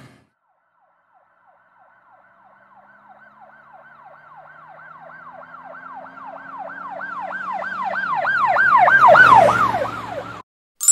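Emergency-vehicle siren in a fast yelp, each sweep falling in pitch about three times a second, growing steadily louder as it approaches and then cutting off abruptly near the end, with a low hum beneath.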